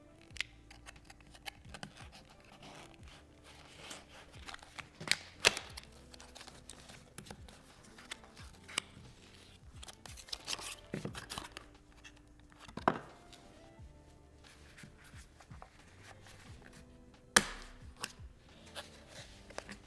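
Cardboard and plastic packaging being handled: a small card box slid open and a clear plastic case clicked and opened, with scattered taps and clicks, the sharpest about five, thirteen and seventeen seconds in. Soft background music plays throughout.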